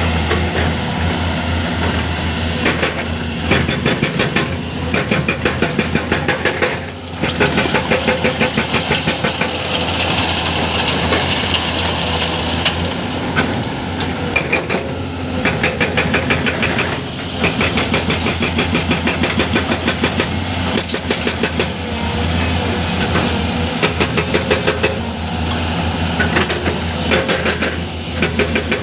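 Hydraulic breaker on a Komatsu PC210 excavator hammering rock in bursts of rapid, evenly spaced blows, each burst lasting a few seconds, over the steady drone of the excavator's diesel engine.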